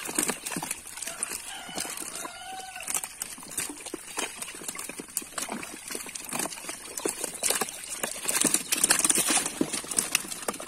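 Live fish flapping and splashing in a shallow net and plastic drums as they are grabbed by hand: a dense run of wet slaps and splashes that grows louder near the end. A brief drawn-out call is heard in the background about two seconds in.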